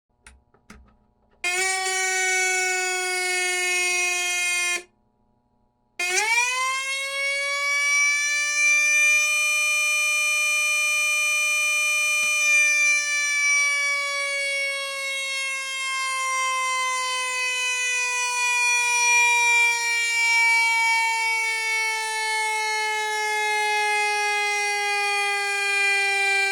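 Whelen 295 series siren sounding its original 'M' simulated mechanical siren tone through the speaker. After a few faint clicks, a steady whine starts about a second and a half in and cuts off. It then starts again, winds up in pitch over about four seconds and slowly coasts back down.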